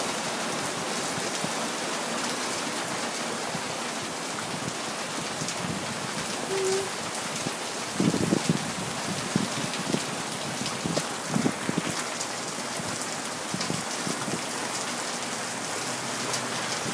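Summer thunderstorm downpour: a steady hiss of heavy rain, with a few brief low thuds about halfway through.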